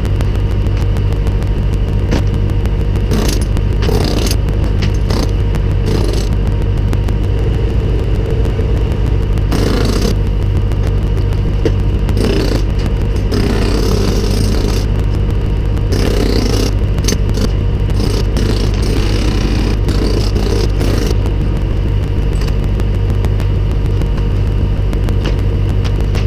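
A combustion engine running steadily at one speed, with short bursts of scraping and clatter, several in the middle, as bricks are broken off the chimney.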